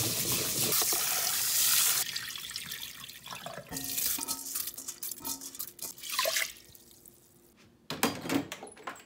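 Rice being washed by hand in a stainless steel bowl with water running: rushing water and swishing grains, loudest for the first two seconds. Then quieter splashing as the wet rice is tipped into the rice cooker's inner pot, and a few knocks near the end as the pot is set into the cooker.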